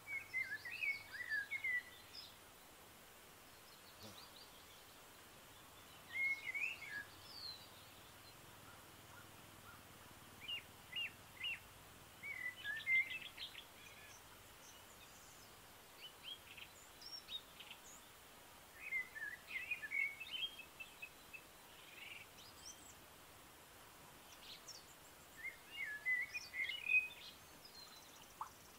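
A bird singing short phrases of quick chirps and trills, repeated every few seconds, over a faint steady outdoor background.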